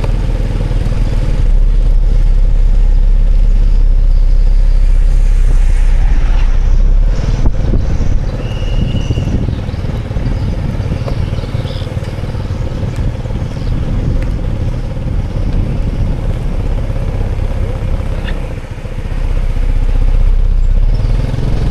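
Road traffic: motorbike engines and vehicles passing as a steady low rumble, easing briefly near the end.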